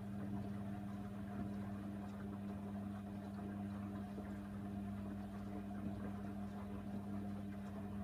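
Hoover Nextra HNWL 7146 washing machine turning its drum on the wash tumble with a wet duvet inside. The drum motor gives a steady, even hum.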